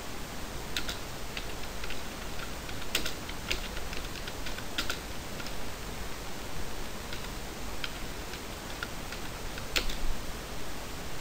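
Typing on a computer keyboard: scattered, uneven key clicks, the loudest about ten seconds in.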